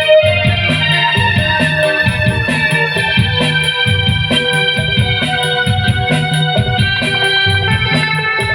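Live music played loud through a P Audio PA system: sustained electronic keyboard or organ chords over a steady drum beat with heavy bass.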